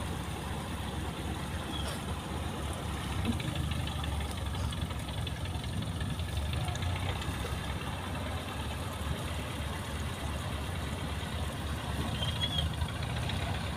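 Inboard diesel engine of a small wooden cantrang fishing boat running steadily at low throttle as the boat eases in to berth.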